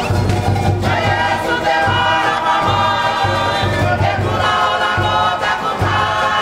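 A Cook Islands kapa rima action song: a choir sings in harmony over a string-band accompaniment, with a steady low beat underneath.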